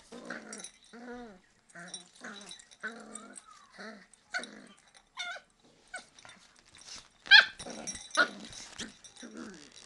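Adult beagle and beagle puppy play-fighting: a string of short growls and yips, about one or two a second, with one loud high yelp about seven seconds in.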